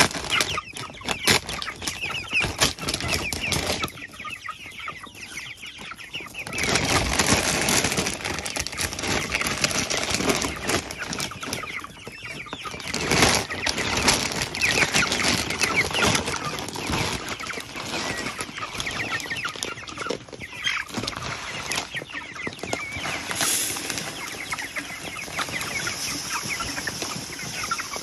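A flock of young white broiler-type chickens clucking and chattering continuously, louder in spells.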